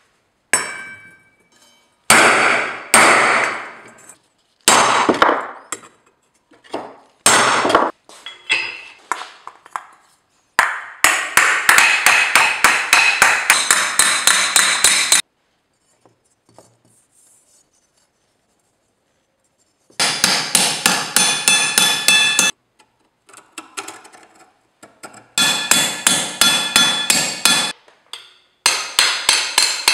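Hand hammer striking a black-iron shoulder-armour plate, shaping it over a metal stake and on an anvil, each blow ringing metallically. It opens with single, spaced blows, then comes in fast runs of several blows a second, with a silent pause of a few seconds midway.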